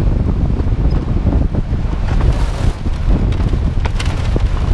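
Airflow buffeting the microphone of a camera mounted on a human-powered aircraft's tail boom: a loud, steady low rumble of wind noise, with a few faint clicks about two and four seconds in.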